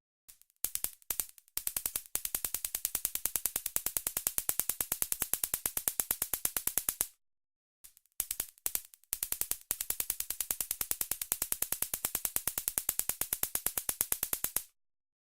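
Stun gun crackling: a fast, even train of sharp electric snaps. It comes in a few short bursts, then runs for about five seconds, stops briefly, and repeats the same pattern.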